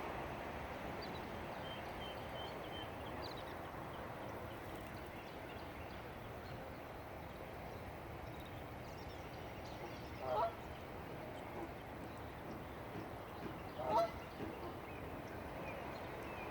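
Canada geese giving two single honks, one about two thirds of the way in and another a few seconds later, over a steady background hiss.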